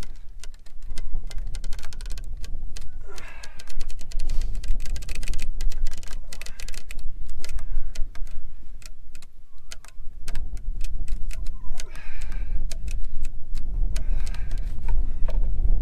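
Fence wire being twisted tight around a wooden post with a metal bar: rapid clicking and scraping of wire on metal, with drawn-out creaks now and then. A low wind rumble on the microphone runs under it.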